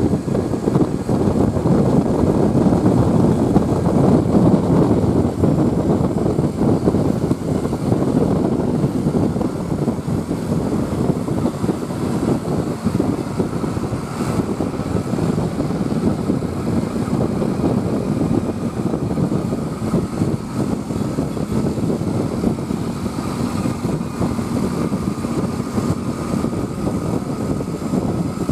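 Vehicle engine running steadily with road noise, and no musical horn sounding.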